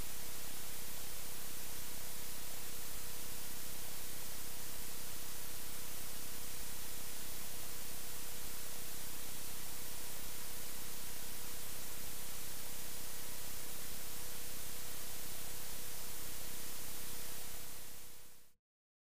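Steady recording hiss with a faint constant electrical hum and no other sounds; it fades out near the end into dead silence.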